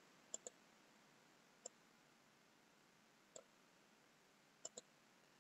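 Faint computer mouse clicks over near silence: six short clicks, a pair near the start, two single ones, and another pair near the end.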